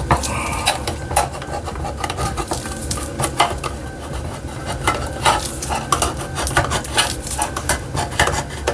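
Irregular clicks, taps and scrapes of a knife cutting food by hand, with metal utensils knocking against a pot.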